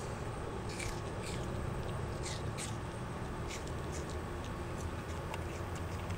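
A black-capped capuchin monkey biting and chewing pieces of apple: a series of short, crisp crunches, most of them in the first four seconds, over a steady low background hum.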